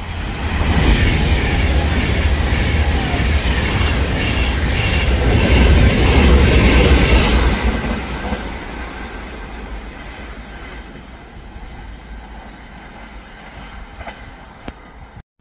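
Class 390 Pendolino electric train running through the station at speed without stopping: a loud rush of wheels on rail that builds, peaks about six to seven seconds in as it passes, then fades away.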